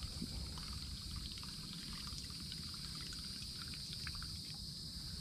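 Faint, steady gurgling of a buzzbait being retrieved across the pond surface, its blade churning the water, over a steady high insect drone.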